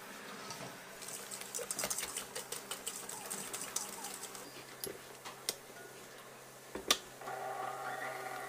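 Red KitchenAid stand mixer whipping egg whites for meringue with its wire whisk in a stainless steel bowl: rapid ticking and rattling, a sharp click about seven seconds in, then the steady whine of the running motor.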